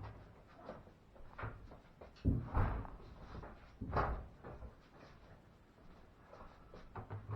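A few knocks and thumps of things being handled: two heavy thuds close together about two and a half seconds in, another about four seconds in, and lighter clicks between.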